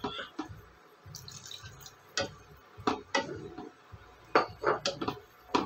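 Wooden spatula stirring a watery tomato-onion masala in a stainless steel pot: wet sloshing, with several short sharp knocks and scrapes of the spatula against the pot, scattered through and loudest about four and a half seconds in.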